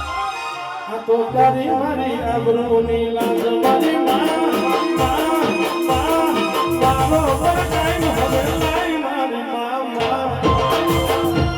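Live Gujarati devotional folk music between sung verses: an instrumental melody over a steady drum beat.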